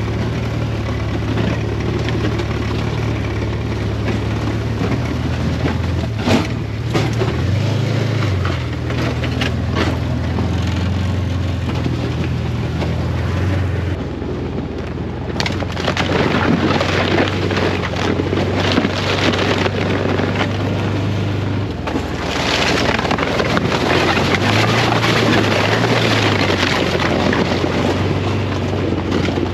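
Side-by-side UTV engine running as it drives along an icy, snowy trail, its low hum shifting in pitch as the throttle changes. Tyre and wind noise grows louder from about halfway through.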